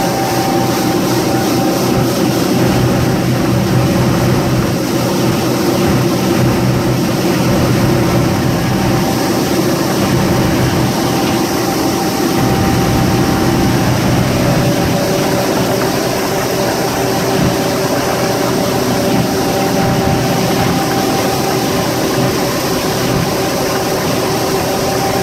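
Triple Mercury outboard engines running steadily at cruise, just under 4,000 rpm, with the boat planing at about 32 knots. The engine note shifts slightly about halfway through.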